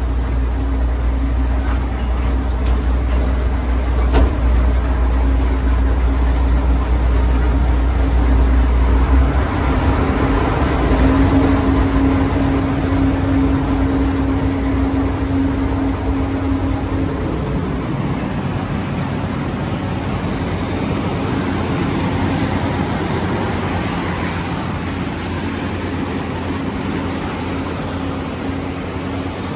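John Deere 975 combine's six-cylinder diesel engine running steadily. A deep rumble drops away about nine seconds in, leaving a steady hum.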